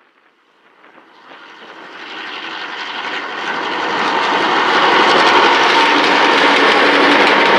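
Four Clyde-built EMD 49 class diesel-electric locomotives hauling a grain train, their engines droning with steady tones over rail noise. The sound swells from faint to loud as the locomotives approach and pass close by.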